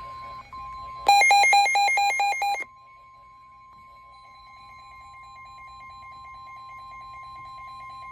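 Emergency alert tone: a steady high attention tone (the NOAA Weather Radio 1050 Hz warning alarm) that precedes a special marine warning broadcast. About a second in, a much louder rapid beeping alarm of alternating pitches cuts in for about a second and a half, and a fainter fast beeping carries on under the steady tone.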